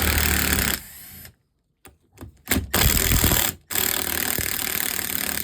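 Milwaukee cordless impact driver with an Allen key bit hammering at engine bolts in three bursts, the last one the longest.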